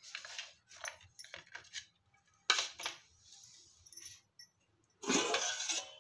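Stainless steel kitchenware clinking: a few short metal clinks, then near the end a longer, louder metal scrape and clatter as the steel plate covering a steel pot is lifted off.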